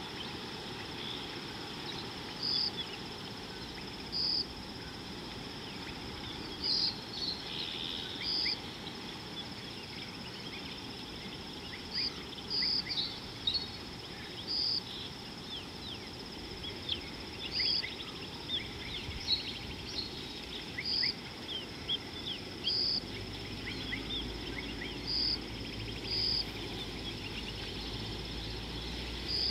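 Natural bush ambience of insects and birds: a steady high insect drone, a short high note repeating every second or two, and many quick bird chirps. A low rumble joins about three-quarters of the way through.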